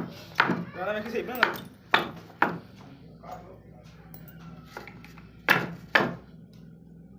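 Sharp, ringing strikes from a hand tool on a hard surface: three about half a second apart, then two more near the end, with a person's voice in the first second.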